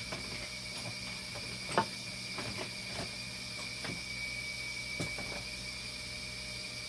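Scattered light clicks and knocks of small machine parts and tools being handled, the sharpest a little under two seconds in, over a steady high-pitched electronic whine and low hum from the running dialysis equipment.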